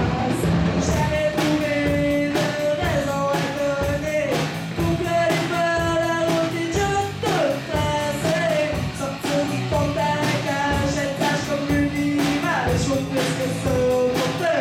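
Rock song with a sung melody over guitar and a steady drum beat.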